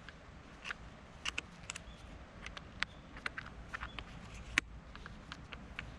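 Scattered light clicks and taps, irregular and a few per second, over a low steady rumble, with a sharper tap about two thirds of the way in.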